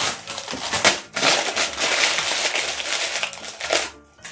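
Paper wrapper crinkling and crackling as it is torn open and peeled by hand from a takeaway gimbap roll, with a short pause about a second in.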